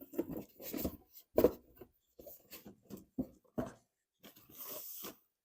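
Power-supply cables being handled and sorted, with irregular rustling and rubbing and a sharper knock about a second and a half in.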